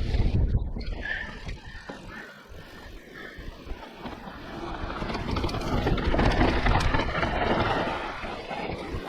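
Mountain bike running down a fast dirt forest trail: tyres rolling and the bike rattling over rough ground, with wind buffeting the helmet-camera microphone. It eases off a couple of seconds in, then grows louder again past the middle.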